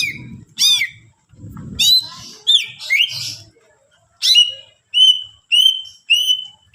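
Cucak ijo (green leafbird) singing: loud, sharp whistled notes that sweep steeply down in pitch, then, from about halfway, a run of short clear notes repeated at an even pace of nearly two a second.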